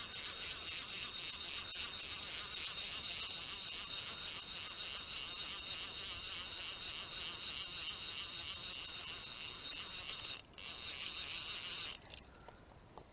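Spinning reel whirring as line is cranked in: a steady high whine with fast, even pulsing. It breaks off briefly, resumes, then stops suddenly near the end.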